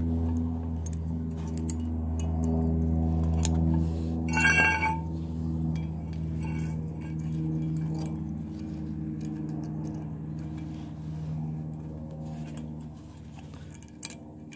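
Stainless brake pad clips being pressed and snapped onto a caliper bracket by hand: small metal clicks, and one bright ringing clink about four seconds in. A steady low hum runs underneath and fades near the end.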